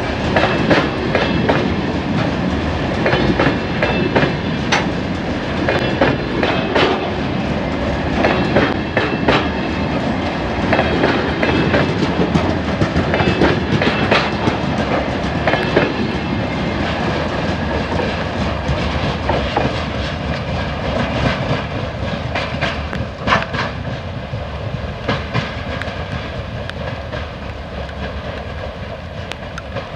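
Freight train of covered hopper wagons rolling past at close range, the wheels clattering over the rail joints in rapid sharp clicks over a steady rumble. The clatter thins and gets gradually quieter through the second half as the train draws away.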